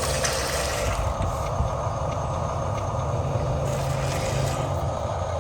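Radio-controlled construction vehicle running steadily: the hum and whine of its electric motors and gears, with a low rumble underneath.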